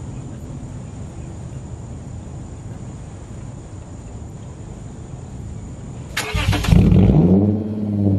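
Straight-piped Lexus IS250 2.5-litre V6 starting up: after about six seconds of low background noise the starter cranks briefly, the engine catches with a loud flare of revs that rises and falls, then settles into a steady idle.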